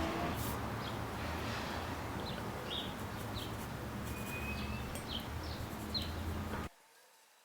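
Short, high bird chirps, several in a row, over a steady rushing noise with a low hum. The noise cuts off abruptly near the end.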